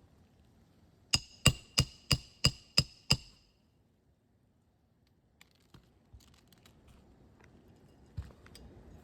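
Roofing hammer striking a metal roof snake seven times in quick succession, about three blows a second, each with a metallic ring, driving a nail back into an asphalt shingle. A few faint clicks follow.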